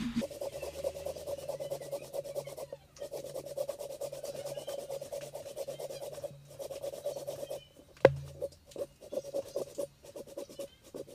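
Hand saw cutting down the middle of a block of jackfruit wood in quick, steady back-and-forth strokes, with a few short pauses. A single sharp knock sounds about eight seconds in.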